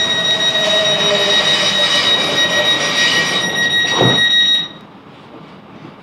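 Class 707 Desiro train's door-closing warning sounding: a loud, steady, high electronic tone that stops abruptly about four and a half seconds in, with a thud just before it ends as the doors shut.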